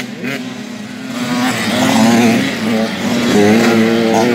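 Engines of several small-wheel youth motocross bikes revving as they ride through a dirt corner. The engine notes rise and fall with the throttle and grow louder about a second or two in.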